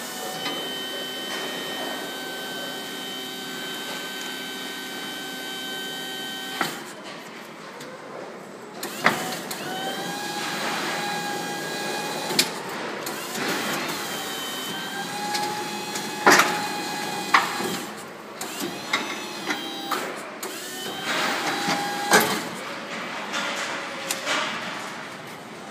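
Electric drive of a powered battery changer's extraction unit running with a steady whine as it reaches out to the battery, stopping about six and a half seconds in. Then the motor runs again with a whine that shifts in pitch, with several loud metal clunks, as the magnet latches onto the industrial truck battery and pulls it onto the changer.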